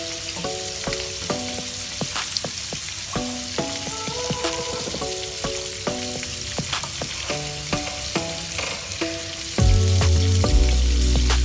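Breaded chicken cordon bleu frying in hot oil, a steady sizzle with scattered crackles, under background music; a heavy bass line comes in about nine and a half seconds in.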